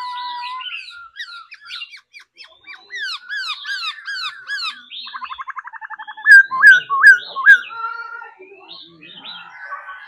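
Caged black-throated laughingthrush singing a rapid, varied song of sweeping whistled notes. About halfway through comes a fast rattling trill, then a run of loud whistled notes, the loudest part of the song.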